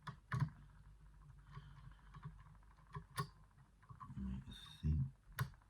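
Sparse small clicks and scrapes of a lever-lock pick and tension tool working the levers of an 8-lever safe lock, with a few sharp clicks spread apart. There are duller handling knocks about four to five seconds in.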